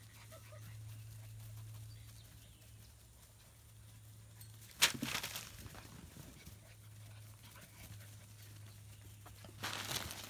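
German Shepherd puppies playing on grass: quiet scuffling, a sudden sharp knock about five seconds in, and a short burst of noise near the end.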